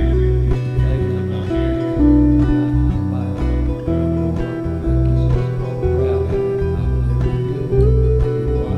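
Instrumental acoustic guitar music: picked notes changing every half second or so over low bass notes.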